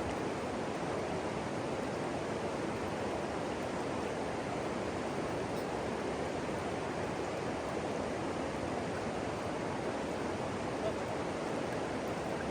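River water rushing steadily over a rocky shoal.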